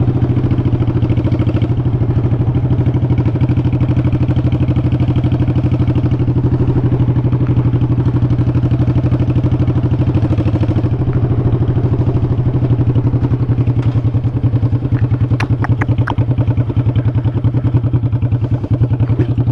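Honda Shadow Sabre 1100's V-twin engine running steadily at cruising speed, its firing pulses heard as an even rapid beat. A few short clicks come about fifteen seconds in.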